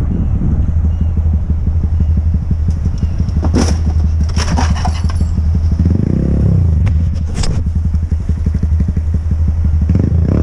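Motorcycle engine running close to the microphone, with a few sharp knocks and clatter in the middle as a motorcycle ahead goes down and slides along the road; the engine note changes about halfway through as the bike slows.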